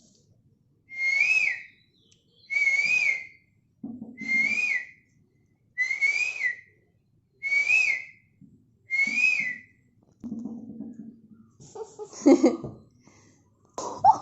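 A girl whistling a bird-call imitation: six identical notes, each a short rise-and-fall, repeated about every second and a half. The whistling stops after about ten seconds.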